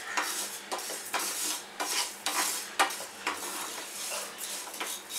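Whole spice seeds (fennel, cumin, mustard and fenugreek) dry-roasting in a nonstick frying pan, stirred and scraped with a spatula: repeated scraping strokes, about two a second, over a light sizzle as the seeds are tossed across the hot pan.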